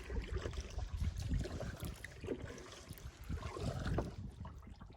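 Kayak paddle strokes splashing and dripping water, with wind buffeting the microphone in low, uneven rumbles.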